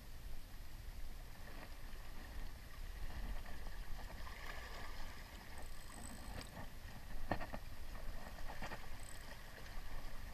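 Small waves lapping and sloshing against shoreline rocks, over a low steady rumble, with a few sharp clicks in the second half.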